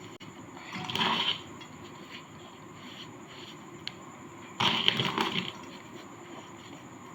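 Dry compacted sand cake crunching and crumbling apart in two bursts, the second longer, with a single small click between them, over a steady faint hiss.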